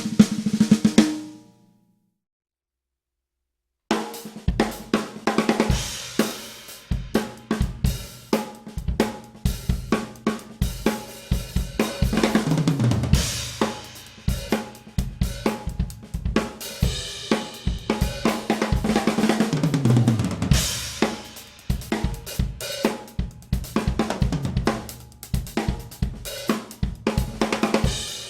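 Sonor Designer 14x5" maple-shell snare drum. A snare passage rings out, then after about two seconds of silence it is played in a full drum-kit groove with hi-hat, cymbals and bass drum. Twice, about 12 and 20 seconds in, a fill runs down in pitch around the kit.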